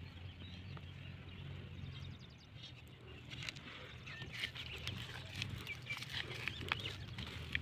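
A goat being milked by hand: the animal shifting and snuffling, with scattered light clicks and rustles over a steady low rumble.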